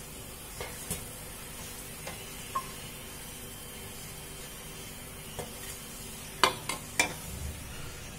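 Aloo tikkis sizzling faintly in oil in a non-stick pan while a wooden spatula scrapes under them and lifts them out onto a steel plate, with scattered light knocks and a few sharper clicks near the end.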